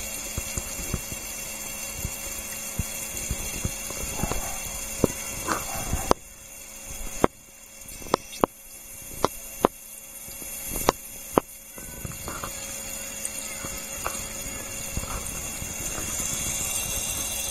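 Water washing over a Miller table's green recovery surface during fine-gold cleanup, with a steady hum underneath. In the middle, a run of about eight sharp clicks.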